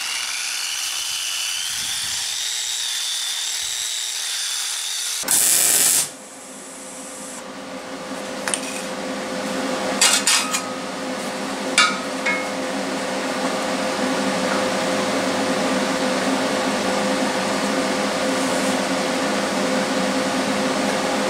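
Harbor Freight electric surface conditioning tool with a wire drum running, its motor whine rising in pitch for about five seconds. After a short loud burst, a steady machine hum carries on, with a few short metal clanks and knocks in the middle.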